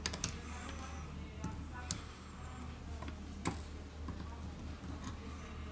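Small sharp clicks at irregular intervals from metal tweezers and a small screwdriver touching a smartphone's middle housing and lifting out tiny screws, over a low steady hum.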